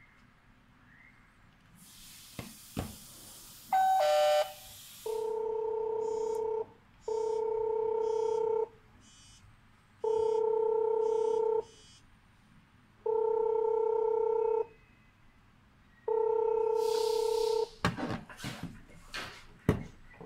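Telephone-style ring tone of a WiFi video doorbell call, a steady two-pitched tone sounding five times for about a second and a half each, roughly every three seconds. A short stepped beep and a burst of hiss come just before the first ring. Clicks and knocks follow near the end.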